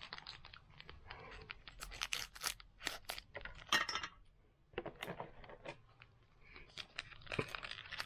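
A foil trading-card booster pack being torn open and its wrapper crinkled. It makes a rapid, irregular run of sharp crackles and clicks, with short lulls midway.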